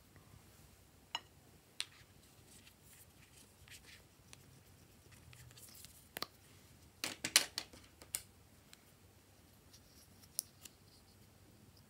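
Small plastic bottle being handled and uncapped: scattered sharp clicks and taps of hard plastic, with a quick run of louder clicks about seven seconds in.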